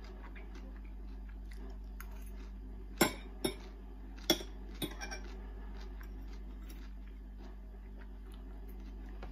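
Metal fork clinking against a china plate, a handful of sharp taps between about three and five seconds in, over a steady low hum.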